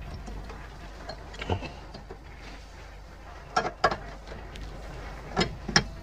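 A handful of short metallic clicks and taps as the clamping nut of a washing machine's new heating element is turned by hand and a socket is fitted onto it: one click about a second and a half in, then two close pairs in the second half.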